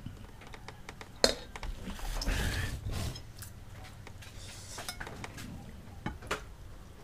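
A spoon knocking and scraping against a metal pot and a serving bowl as rice and curry are dished out. There is one sharp clink about a second in, a scraping rustle a second later, and a couple of lighter clinks near the end.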